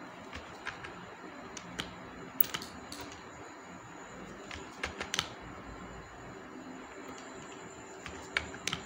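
Scattered clicks of a computer keyboard and mouse, single or in quick pairs, over a faint steady hiss.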